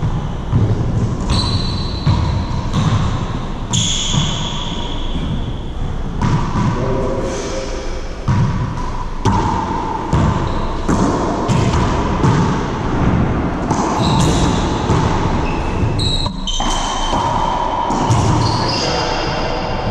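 Racquetball play in an enclosed court: the ball smacks off the walls, floor and strung racquets, each hit sharp and echoing. Athletic shoes squeak briefly on the hardwood floor as the players move.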